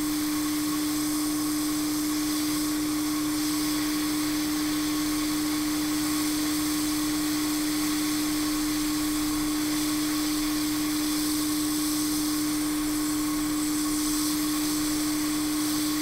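Hot air rework station blowing steadily while it reflows solder into balls on a chip's pads: an even rush of air over a steady motor hum.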